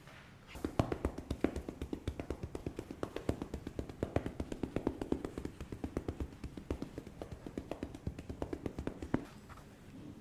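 Rapid, rhythmic percussive strikes, about eight a second, typical of a practitioner's cupped hands or fists tapping a patient's back in percussion massage. The tapping starts about half a second in and stops about a second before the end.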